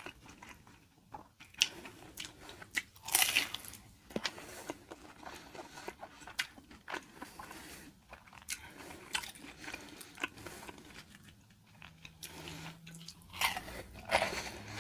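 A person biting and chewing crispy fried fast food close to the microphone: sharp crunches at irregular intervals with quieter chewing between, a few louder crunches about three seconds in and near the end.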